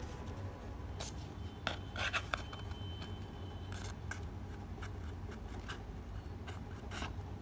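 Faint handling sounds of cardboard and a wooden chopstick: a few light clicks and rubs as a chopstick is pushed through a hole in a cardboard strip, over a low steady hum.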